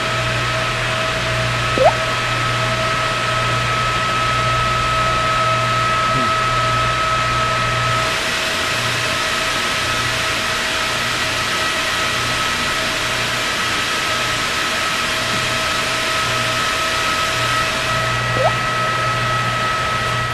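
Steady loud drone of a ferry's engine room, with diesel engines and machinery running, a low hum under a high, steady whine that drops out for a while midway. A brief rising chirp cuts in twice, about two seconds in and again near the end.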